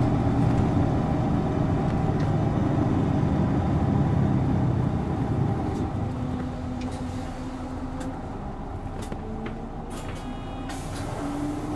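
Isuzu Erga city bus heard from inside the cabin, its turbo-diesel straight-six engine running loud under power for about five seconds, then dropping back so the cabin goes quieter. A few short clicks and rattles follow near the end.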